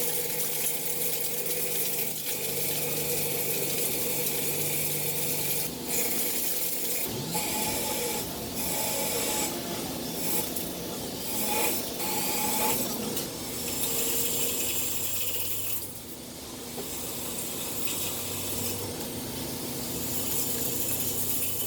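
Metal lathe running: a steady motor and spindle hum with the scraping hiss of cutting. A few brief rising and falling tones come in partway through as the machine changes speed, with occasional sharp clicks.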